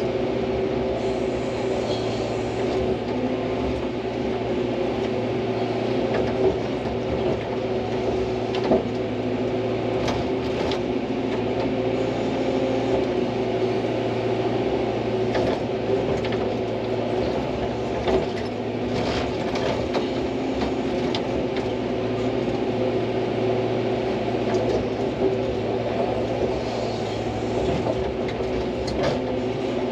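Hydraulic excavator's diesel engine running steadily as the machine digs, with a few short knocks.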